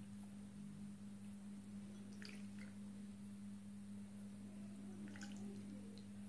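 Jelly cubes being set down by hand on a whipped-cream topping, heard as a few faint soft wet clicks about two seconds in and again about five seconds in. A steady low hum runs underneath.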